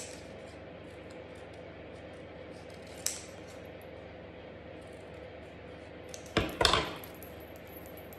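Scissors snipping red cardstock with small clicks of the blades, then a louder clatter about six and a half seconds in as the scissors are set down on the table.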